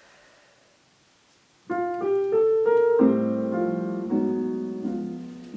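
Near silence, then a piano comes in about a second and a half in: a few single notes one after another, then full chords, an introduction leading into a sung song.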